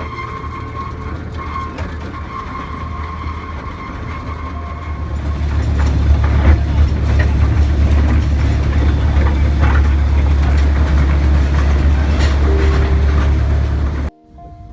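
Loud, steady low rumble that grows louder about five seconds in and cuts off suddenly near the end.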